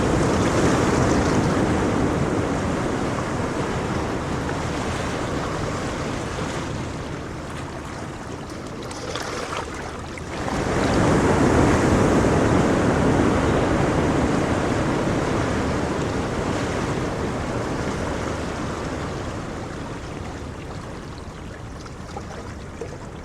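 Ocean waves breaking and washing up the shore: one wave near the start, then a second, louder surge about ten seconds in that slowly ebbs away.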